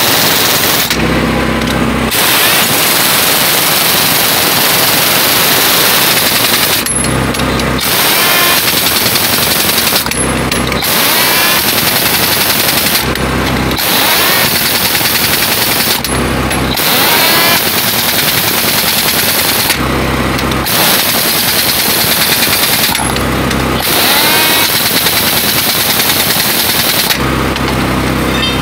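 Pneumatic impact wrench hammering on the lug nuts of a heavy truck wheel, in bursts of a few seconds each with brief pauses between. A steady engine hum shows in the pauses.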